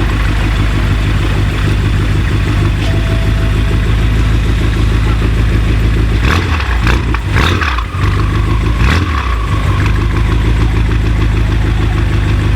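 Car engine idling with a deep, steady note, blipped in a few quick revs between about six and nine seconds in, then settling back to idle.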